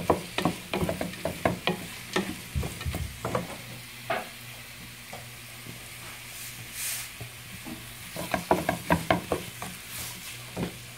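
Wooden spatula stirring and scraping chopped onions and green chillies around a coated frying pan, a quick run of scrapes and knocks, a quieter stretch in the middle, then another run of stirring near the end. Under it, the onions sizzle faintly as they fry in oil.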